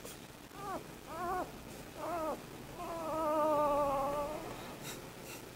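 Newborn Aussiedoodle puppies whimpering: three short squeaks that rise and fall, then one longer, slightly wavering whine. The crying is taken as the puppies wanting their mother.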